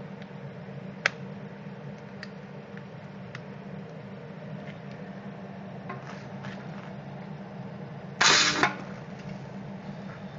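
Drawn-arc stud weld from a Taylor 1200 stud gun: a loud crackling burst about half a second long, near the end, as the arc fires a 10 mm shear stud down onto mild steel. A sharp click comes about a second in, over a steady low hum.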